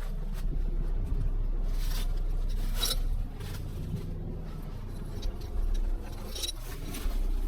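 Excavator engine running steadily, with short scraping and crackling noises of brush and branches about half a second, three seconds and six and a half seconds in.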